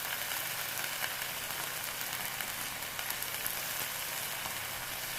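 Amaranth leaves and pumpkin pieces frying in ghee in a pan: a steady sizzle with faint small crackles.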